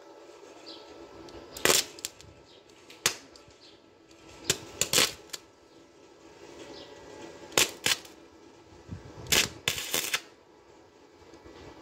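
Gasless flux-core wire welder laying tack welds on the steel of a van's accelerator pedal: about six short bursts of arc, coming one to three seconds apart.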